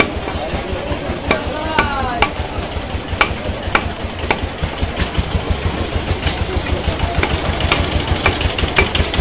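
Meat cleaver chopping beef on a wooden log chopping block: sharp knocks about every half second to a second, over the steady low rumble of an engine running.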